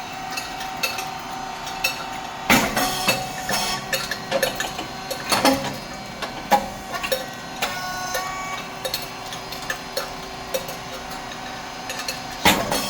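Rice cake popping machine running its cycle: a steady hum from the motor and hydraulic pump. Two loud bursts come about two seconds in and again near the end, ten seconds apart, as the heated moulds open and the cakes puff. Light clicks and clatter from the mechanism and falling cakes fill the gaps.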